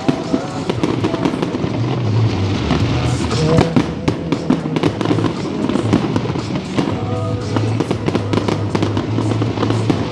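Fireworks shells bursting and crackling in quick succession throughout, with music playing alongside.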